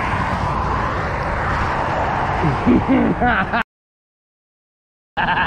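Loud, steady wind rush over the microphone while riding a fast e-bike, with a voice calling out briefly about two and a half seconds in. The sound then cuts out completely for about a second and a half before returning.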